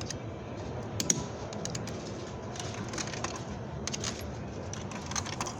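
Payphone being handled: scattered light clicks and small clatters, a cluster of them about a second in and more near the end, over a steady background hum.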